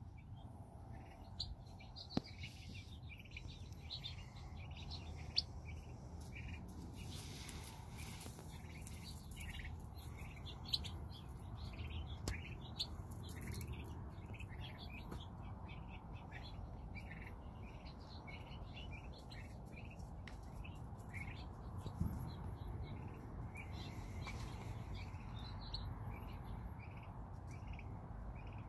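Young turkey poults peeping: many short, high calls repeated throughout, over a steady low rumble, with a few sharp clicks here and there.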